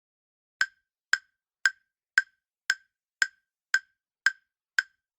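Countdown-timer tick sound effect: short, evenly spaced wooden-sounding ticks, about two a second.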